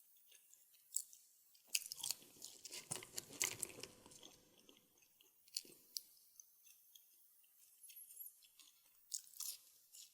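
Close-miked eating of Taco Bell food: crunchy bites and chewing, densest from about two to four and a half seconds in, then scattered crisp mouth clicks and another short burst of crunching near the end.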